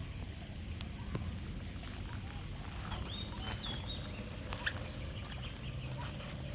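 Several short, high bird chirps and whistles about three to five seconds in, over a steady low rumbling noise.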